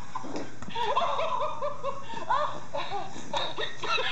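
Plush laughing-monkey toy's recorded laugh playing from its voice box, a rapid run of repeated 'ha-ha' syllables.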